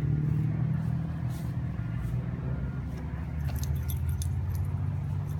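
A steady low mechanical hum runs throughout. About three and a half seconds in, a quick cluster of light metallic jingles comes from a dog collar's tags as the puppy runs.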